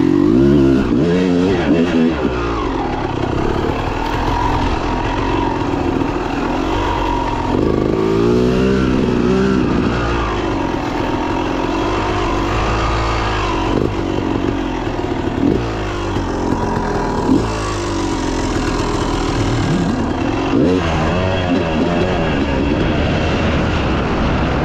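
Dirt bike engine revving hard and falling back over and over, the pitch sweeping up and down every second or two as the rider accelerates, shifts and rolls off through the track.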